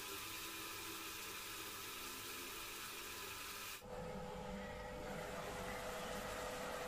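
Chicken pieces sizzling with a steady hiss in a pot on an induction hob. About four seconds in, the sound cuts abruptly to a duller noise with a steady hum.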